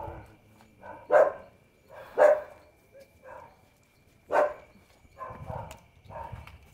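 Dog barking in a series of short, irregular barks, three of them much louder than the rest.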